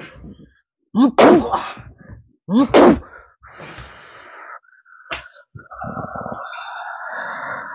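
A man's voice giving three short, sharp shouted exclamations with falling pitch, about a second and a half apart, like ritual casting cries. They are followed by a breathy hiss and, near the end, a longer rasping hiss.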